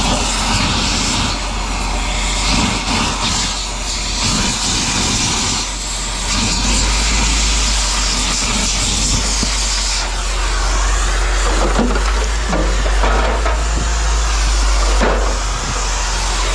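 Steady engine-like rumble with a hiss over it, and a couple of short knocks in the second half.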